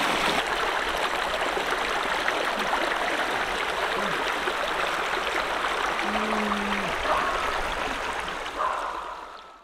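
Shallow rocky stream rushing over stones, a steady water noise with a few faint short pitched sounds on top; it fades out near the end.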